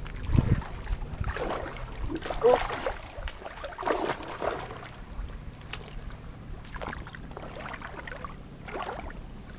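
Water splashing and sloshing around a person's legs as they wade through shallow lake water with a carp, in irregular swishes that ease off after about five seconds as they crouch to lower the fish back in.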